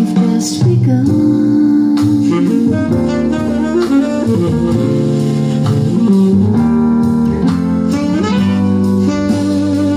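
Recorded music played through a pair of Mission MX-S bookshelf speakers driven by a small DIY TDA7297 amplifier: an instrumental jazz passage with a melodic lead line over guitar and bass.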